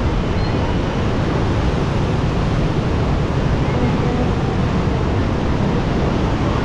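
Floodwater rushing through the open gates of a river sluice and churning downstream, a loud, steady noise without breaks.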